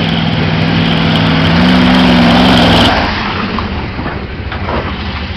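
Engine of a lifted 1984 Chevy pickup on Boggers mud tires, revving hard as the truck plows through a mud hole. The engine pitch climbs about a second and a half in, holds at its loudest, then drops off suddenly near the three-second mark and carries on more quietly.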